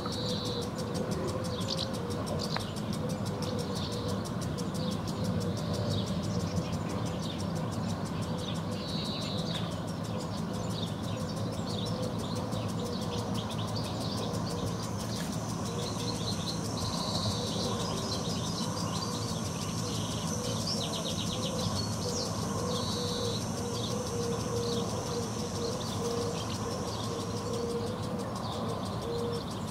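Pond-side ambience: swallows and house martins chirping repeatedly over a steady low hum of distant traffic. A garden sprinkler ticks rapidly through the first half.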